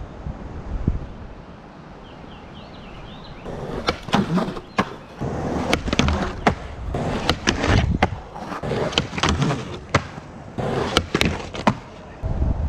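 Skateboard on a concrete skatepark. Quiet rolling at first, then from about three and a half seconds in a long run of sharp clacks and knocks as the board pops, slides along a picnic table edge and lands.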